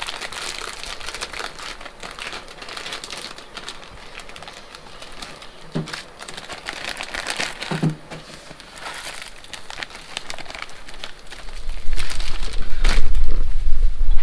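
Plastic instant-ramen packets crinkling and rustling as they are handled and the noodle blocks are taken out, with a couple of soft thuds partway through. Near the end a loud low rumble comes in.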